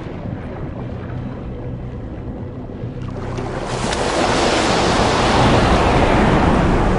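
Background music with held low notes, and seawater rushing in like surf, swelling up about three seconds in and staying loud.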